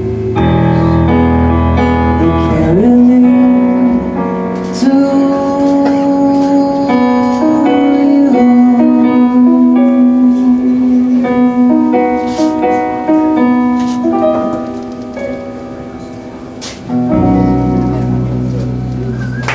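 Small live band playing the instrumental close of a soft song on guitars, bass and electric piano. The bass drops out about 3 seconds in, leaving slow sustained chords and a single held melody note. It comes back in near the end.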